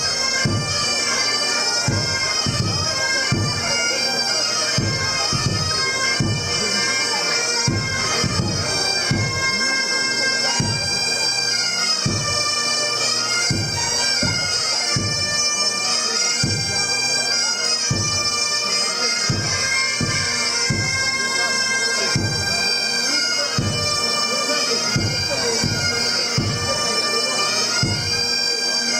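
Breton bagad playing: bagpipes with their steady drones under the melody, bombardes, and a bass drum beating a steady pulse.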